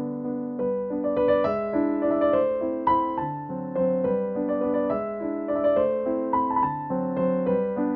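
Background piano music: a steady stream of gentle, evenly paced notes.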